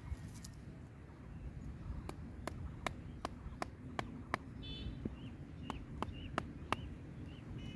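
Wooden mallet striking the top of a bamboo stake, driving it into soft mud: about a dozen sharp, even knocks, roughly three a second, starting about two seconds in.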